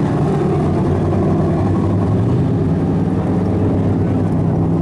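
Race car engine running steadily, a loud low drone with no clear revving.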